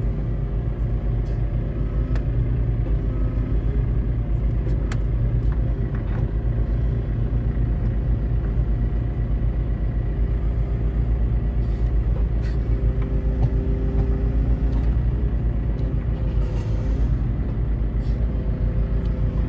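Loading machine's engine running steadily, heard from inside its cab, as it lifts a heavy crate of firewood on its arm.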